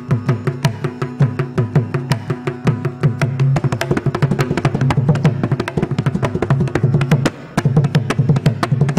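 Mridangam playing a fast run of strokes, about five or six a second, over a steady drone: the closing passage of a Carnatic varnam. A short break comes about three-quarters of the way through, and the drumming stops abruptly at the very end.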